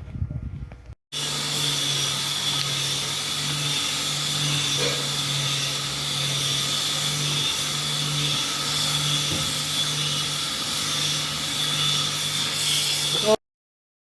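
Motorised cassava grating machine running steadily, with a constant hum and a bright, rasping high whine. It starts abruptly about a second in and cuts off suddenly near the end.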